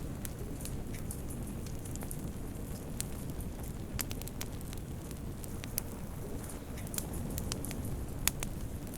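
Wood fire burning in a fireplace: a steady low rumble of flames with frequent sharp crackles and pops scattered irregularly, one louder pop near the end.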